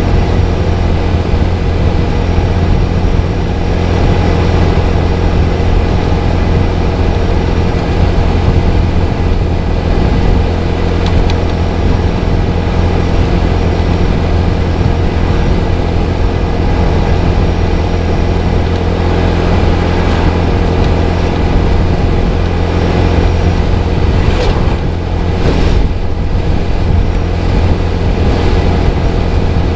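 Small motorcycle riding at a steady cruise, its engine running evenly under a heavy rush of wind and road noise.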